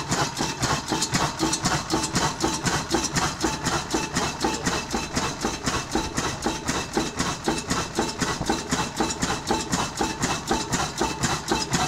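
1905 MAN DM10 vertical diesel engine running steadily, its mechanism knocking in a fast, even rhythm over the hum of the engine.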